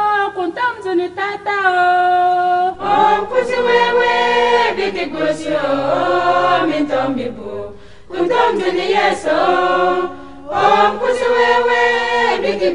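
A choir singing a hymn in the Wimbum language, one voice at first and many voices from about three seconds in.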